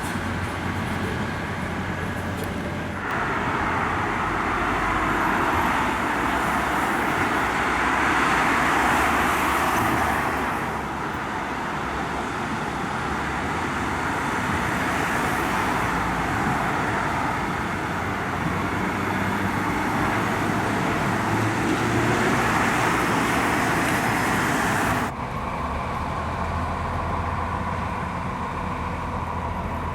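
A train running at a station platform: a steady low engine hum under a louder rushing noise that starts about three seconds in and cuts off suddenly about 25 seconds in.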